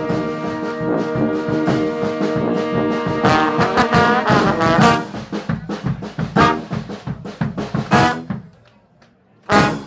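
Street brass band with drums playing. A held brass chord over percussion gives way to a run of short, punchy ensemble hits, ending on a last stab about eight seconds in. After about a second of near quiet, loud sound starts again near the end.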